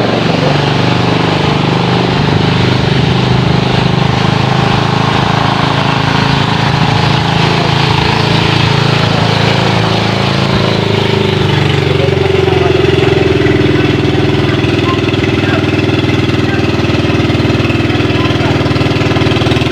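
Small engine of a narrow fiberglass motor boat (bangka) running steadily under way on the river. Its pitch shifts a little about twelve seconds in.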